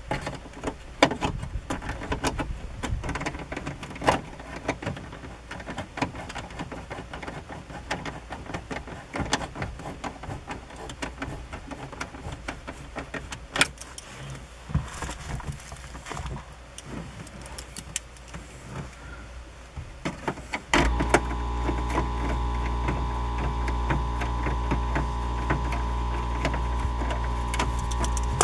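Scattered clicks and knocks of hands working on a Ford F-150's plastic dashboard trim and steering column. About two-thirds of the way in, a steady low hum with held tones starts suddenly and keeps going.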